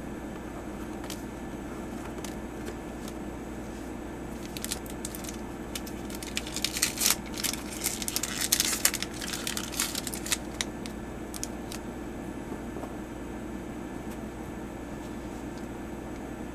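Magic: The Gathering cards being handled and slid against one another, a run of crisp rustles and clicks about a third of the way in that dies away a few seconds later, over a steady background hum.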